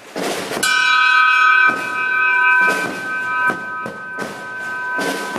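Brass ship's bell struck once about half a second in, then left ringing with a clear, slowly fading tone of several pitches. Dull noisy thumps recur about once a second beneath it.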